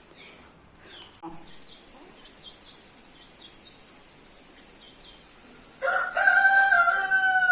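Rooster crowing once, a loud steady-pitched call lasting about a second and a half near the end, after a stretch of faint short bird chirps.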